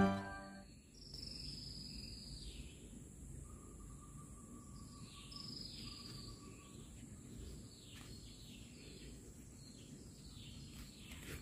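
Faint outdoor ambience: birds calling with repeated high chirps that fall in pitch, a thin steady tone for a few seconds around the middle, and a low background rumble.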